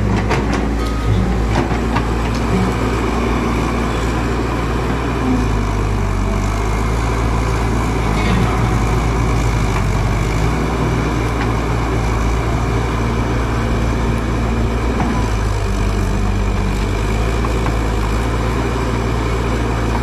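Caterpillar hydraulic excavator's diesel engine running steadily as the machine digs its bucket into soil and brush, a continuous low engine drone.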